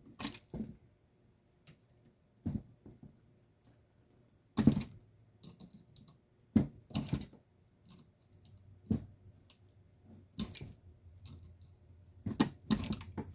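Hand tools knocking and clicking against the garage door opener's metal parts in about ten separate sharp strikes, irregularly spaced with pauses between, as the transformer is worked loose from the chassis.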